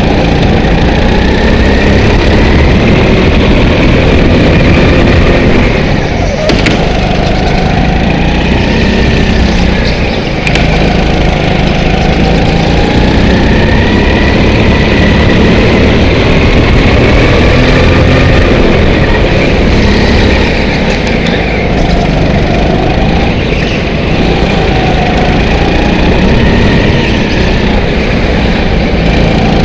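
Indoor rental kart's engine heard from the driver's seat, running hard, its pitch rising and falling every few seconds as the kart slows for corners and accelerates out of them. Two brief sharp knocks about six and ten seconds in.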